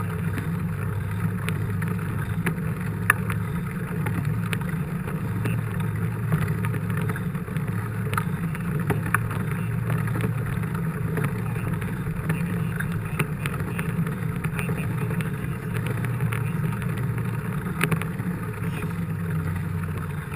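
Steady wind and road rumble picked up by a bike-mounted GoPro while a mountain bike is ridden, with scattered small clicks and rattles.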